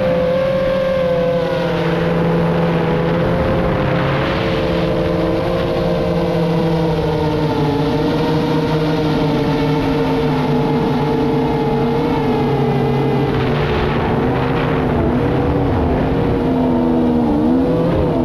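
FPV racing drone's electric motors and propellers whining steadily, their pitch drifting up and down with the throttle, over a dense rush of wind and noise. There is a brief dip and rise in pitch near the end.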